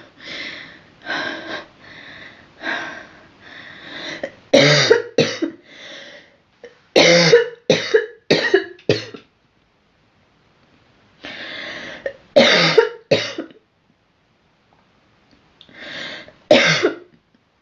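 A girl coughing in repeated fits: softer, breathier coughs at first, then bouts of three or four hard, quick coughs in a row, separated by pauses of a second or two.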